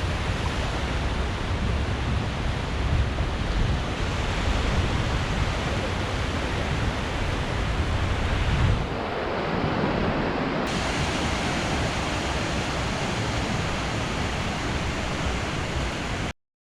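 A steady rushing noise with no distinct events, such as surf or wind on the microphone. Its tone shifts about nine seconds in, and it cuts off abruptly just before the end.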